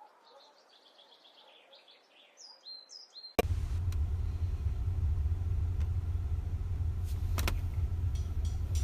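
A few faint high chirps, then a sudden cut about three and a half seconds in to a loud, steady low rumble of a boat motor running, with wind noise and a couple of knocks.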